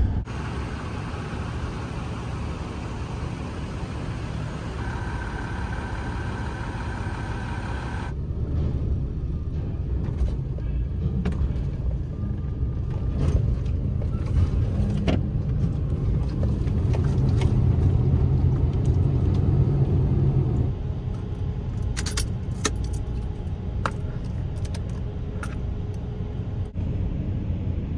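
A vehicle running with a steady low rumble that swells for a few seconds past the middle, with scattered clicks and rattles. A steady tone sounds for about three seconds early on, before a cut.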